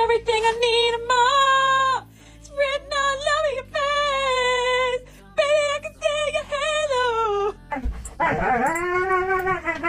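A cat yowling in long, wavering, drawn-out cries, several in a row with short breaks. Near the end a husky-type dog takes over with a howl that rises and then falls.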